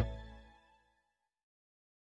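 Background music fading out within the first half second, then dead silence.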